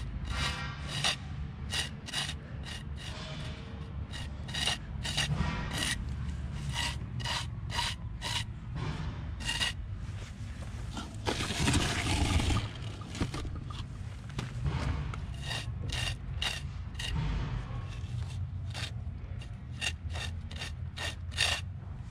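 Metal jointing iron scraping and rubbing along fresh mortar joints between stone coping slabs, a long run of short strokes as the pointing is struck and finished. There is a longer, louder rasp about halfway through.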